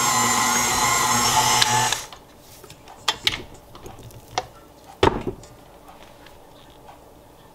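KitchenAid Artisan tilt-head stand mixer running steadily as it kneads dough, then switched off about two seconds in. A few clicks and a knock follow, the biggest about five seconds in, as the mixer head is tilted up and the dough lifted out on the attachment.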